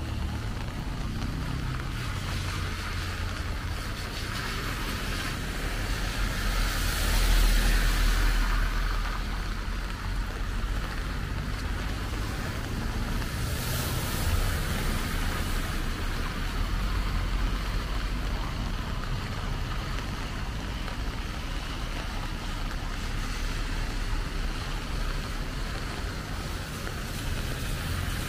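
Car tyres hissing on a wet road as vehicles pass, the loudest about seven seconds in and another about fourteen seconds in, over a steady low wind rumble on the microphone.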